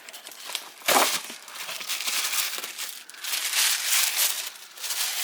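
Paper packaging crinkling and rustling as it is handled, with a sharper, louder crackle about a second in.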